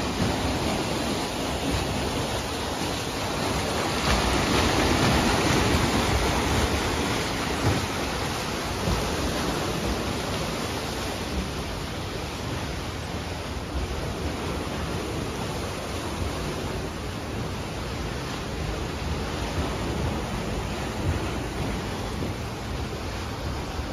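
Steady rushing of churned lake water along the hull of a moored paddle steamer, swelling for a few seconds about four seconds in.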